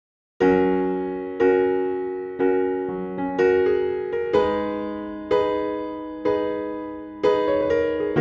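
Background music: a piano-like keyboard playing slow chords, one struck about every second and left to ring and fade, starting about half a second in.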